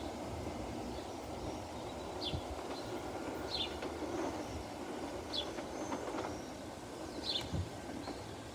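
Two-car electric commuter train running along the track as it pulls away, a steady rumble of wheels on rail. A bird gives a short, high, falling chirp every couple of seconds over it.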